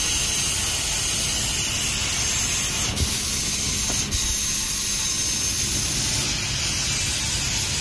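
Steady hiss over a low rumble, with a faint knock about three seconds in and another about a second later.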